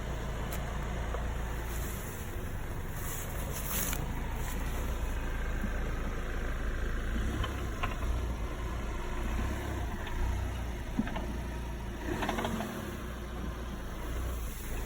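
Volkswagen Tiguan 2.0 engine idling, heard under the bonnet, with a knock from the left side near the DQ500 dual-clutch gearbox. The knock has grown louder over time, and a replaced flywheel has not cured it.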